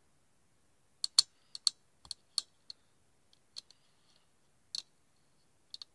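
About a dozen sharp, irregular clicks and taps, as of small plastic parts being handled and fitted together. The loudest are just after a second in, and a few quieter ones follow up to near the end.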